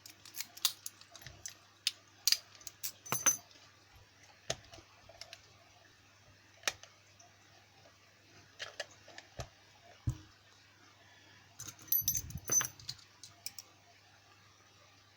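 Keys and small metal lock-picking tools clinking and jangling as they are handled: scattered light clicks, busiest in the first few seconds and again about twelve seconds in.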